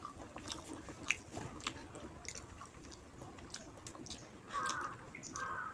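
Close-up mouth sounds of eating rice with fish curry: wet chewing and smacking with small irregular clicks. Two short, louder background sounds about a second apart near the end.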